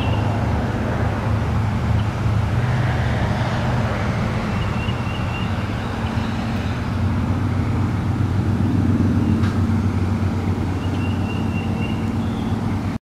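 A motor running steadily with a low hum, and short high chirps three times over it.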